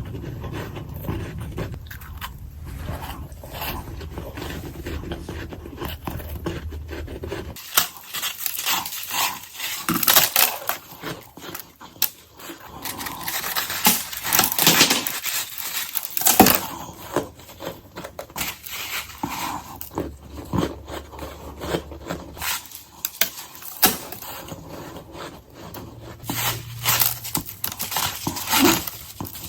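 Close-up crunching of ice being bitten and chewed, many sharp irregular crunches one after another. A low background hum under the first part drops out about eight seconds in.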